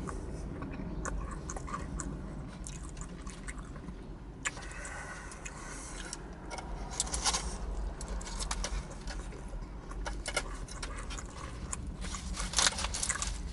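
Eating a Philly cheesesteak sandwich: wet chewing and mouth sounds with irregular crackling clicks, thickest about seven seconds in and again near the end, over a low steady rumble of traffic.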